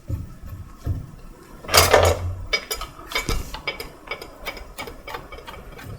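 Metal clinks and small knocks from hand tools and steering rack parts being handled during reassembly, with one louder metallic clank about two seconds in.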